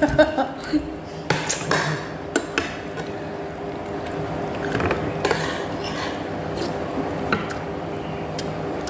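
Metal fork and spoon clicking and scraping against a ceramic noodle bowl while eating, a handful of sharp clinks, most of them in the first few seconds, over a steady low hum.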